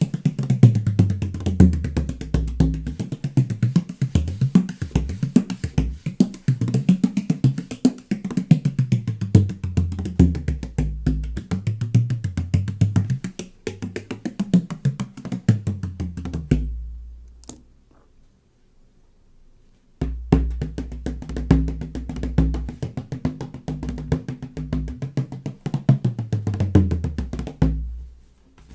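16-inch Kevin O'Connell tunable bodhrán with a medium goatskin head, beaten in a fast, steady rhythm, its deep tone sliding up and down in pitch. About two-thirds of the way through the playing stops and rings out, and after a pause of a few seconds it starts again.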